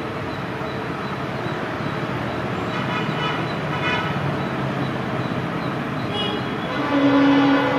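EMD WDP-4B diesel locomotive running as it approaches at the head of a passenger train, its engine and rolling noise growing steadily louder. About seven seconds in, its horn starts blowing a loud steady tone.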